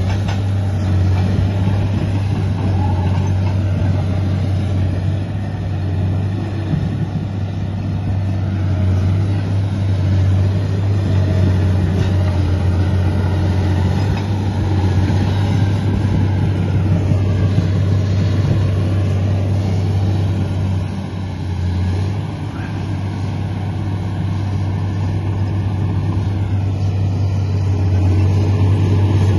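Komatsu D85 bulldozer's diesel engine running steadily with a strong low drone, easing briefly about three-quarters of the way through and picking up again near the end.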